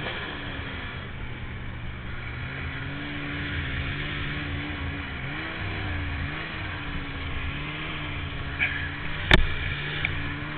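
Polaris 800 two-stroke snowmobile engine running, its pitch rising and falling with the throttle. A sharp knock about nine seconds in is the loudest sound.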